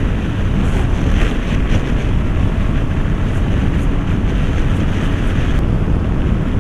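Steady loud wind rush over the microphone of a motorcycle at highway speed, with the engine and road noise underneath.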